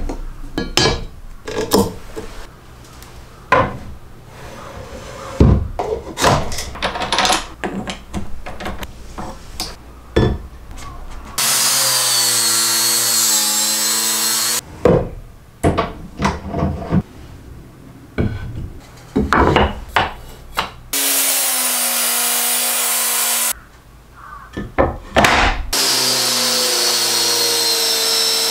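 Clicks and knocks of handling tools and parts on a workbench, broken three times by a Makita angle grinder running steadily with a sanding attachment: once about 11 seconds in for some three seconds, again about 21 seconds in, and from about 26 seconds on, when it is sanding wood with a drum sander.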